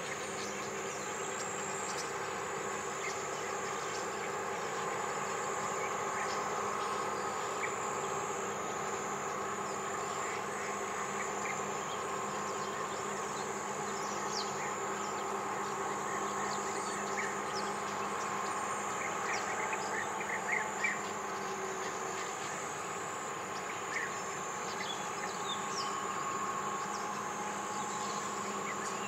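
A flock of European starlings bathing in shallow water: scattered short chirps and splashes, busiest about twenty seconds in, over a steady buzzing drone.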